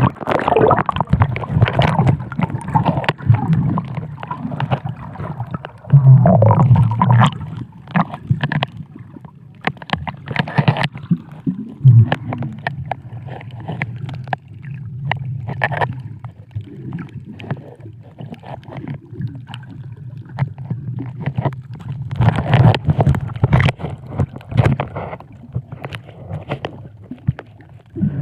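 Muffled sound of water as picked up by a camera below the surface: a steady low rumble with gurgling bubbles and many scattered clicks and crackles, swelling louder in bursts a few times.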